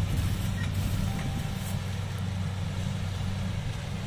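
Kubota DC-70 combine harvester's diesel engine running steadily as the machine cuts rice: a continuous low drone.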